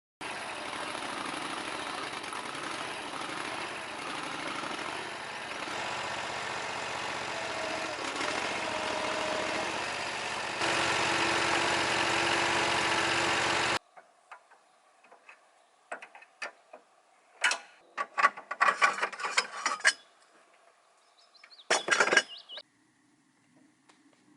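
A small engine running steadily, in stretches that jump louder a few times, then cuts off abruptly about halfway through. After it come scattered clicks and short bursts of sharp cracking and rustling.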